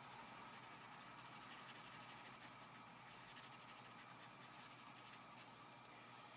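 Graphite pencil shading on paper: faint, quick back-and-forth scratching strokes that stop near the end.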